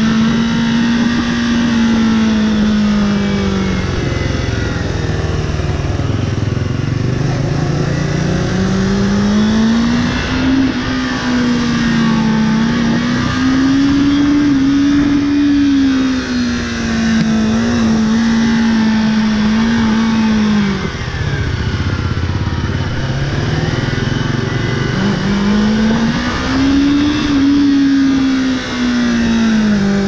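Motorcycle engine running while riding, its revs rising and falling with the throttle: the pitch drops about four seconds in, climbs back from about eight seconds and holds, falls again a little after twenty seconds, then rises once more before dropping near the end.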